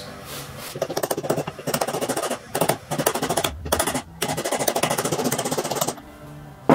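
A hammer lightly and rapidly tapping a piece of old bearing race used as a driver, seating a new rear pinion seal into a Nissan R200 differential housing. It is a quick run of many taps a second with short pauses, then one louder knock near the end.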